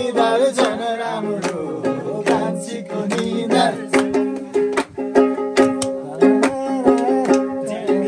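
Background music with plucked strings and a steady percussive beat.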